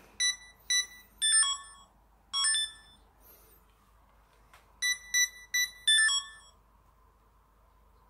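Sony action camera's operation beeps as its buttons are pressed to move through the menu: about eight short electronic beeps in two groups, a few held slightly longer.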